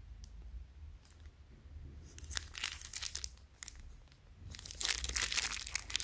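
Clear plastic wrap around a boxed Zippo lighter crinkling as the box is handled and turned over, in two spells of rustling: about two seconds in, and again near the end.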